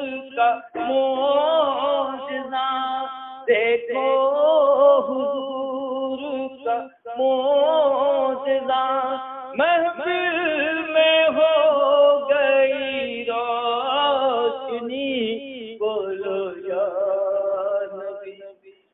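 A man singing a naat (Islamic devotional song) without instruments: long, wavering melodic phrases broken by short pauses for breath.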